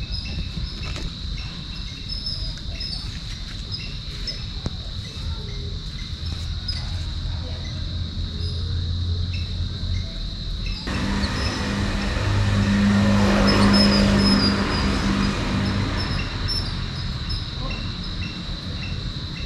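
Outdoor ambience: a steady high insect trill with scattered bird chirps. About halfway through, a motor vehicle passes by, swelling to the loudest point and fading away again.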